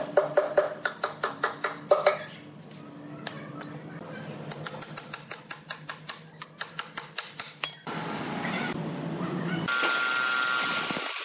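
Rapid, evenly spaced mechanical clicking or knocking, about six a second, over a low steady hum. Fainter clicking follows, then a steady rushing noise near the end.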